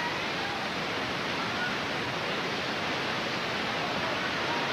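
Steady hubbub of a boxing arena crowd, with a few faint voices standing out now and then.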